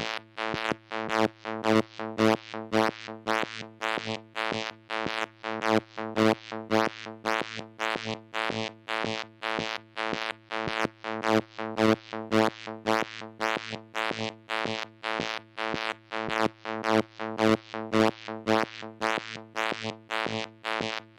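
Moog Mother-32 analog synthesizer sounding a buzzy note at one steady pitch, retriggered about three times a second, each note rising and falling in loudness and brightness by an irregular amount. The uneven pattern comes from modulation by a Comdyna GP-6 analog computer running the chaotic Lorenz equations.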